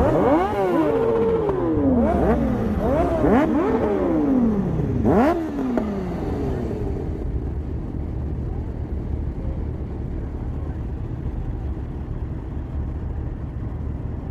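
Sport motorcycle engine revved hard in a series of quick throttle blips, the pitch shooting up and dropping back again and again for about six seconds, then settling to a steady idle rumble.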